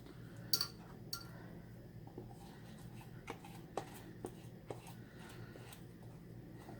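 Quiet, scattered clicks and taps of a utensil against containers while soap batter is scraped out. Two sharper clicks come about half a second and a second in, then softer ticks every half second or so.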